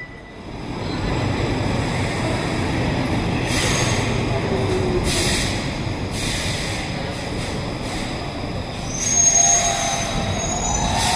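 Stockholm metro train running through an underground station: a steady rail rumble that builds in the first second, with metallic wheel squeal about nine seconds in, the loudest moment.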